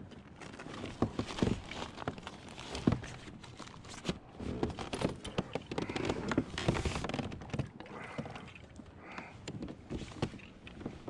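Irregular knocks, taps and rustling from handling gear in a plastic fishing kayak, with the sharpest knocks about a second and three seconds in.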